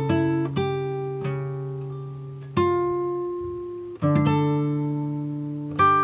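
Background music on acoustic guitar: slow plucked chords, each left to ring out and fade before the next.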